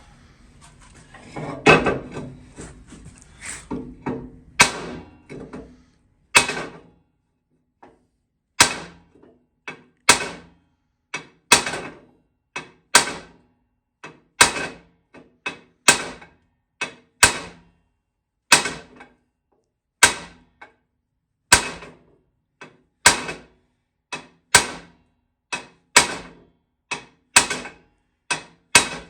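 Hammer striking metal in slow, even blows, about one every second and a half, after a quicker cluster of knocks in the first few seconds: old wheel studs being driven out of a Ford 9N tractor's wheel hub.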